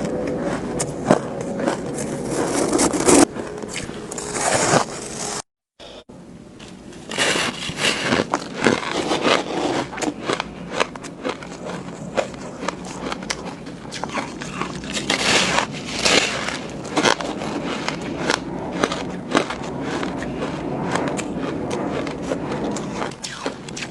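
Close-miked biting and chewing of powdery shaved ice: a dense run of crisp crunches, squeaks and scrapes. The sound cuts out completely for a moment about five and a half seconds in, then the crunching resumes.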